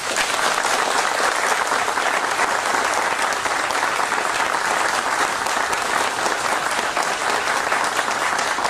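Crowd applauding: dense, steady clapping that starts suddenly and keeps up without a break.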